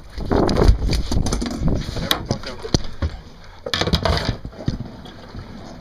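Irregular knocks and thumps on a boat deck, loudest about half a second in and again around four seconds in.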